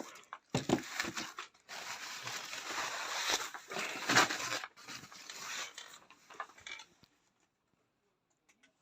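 Packaging rustling and crinkling as a parcel is unwrapped by hand, with scattered knocks; the sound cuts off abruptly about seven seconds in.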